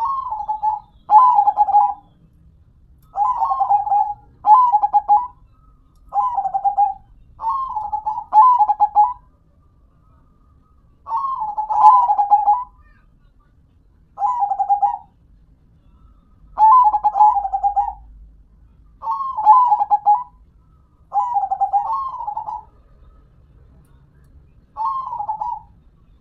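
Zebra dove (perkutut) singing, a series of short, bubbling coo phrases repeated every couple of seconds, some in quick pairs.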